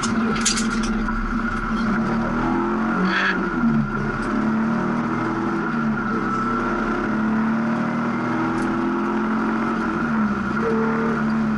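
Rally car engine driven hard, its pitch climbing and dropping back with throttle and gear changes, with a brief clatter about three seconds in.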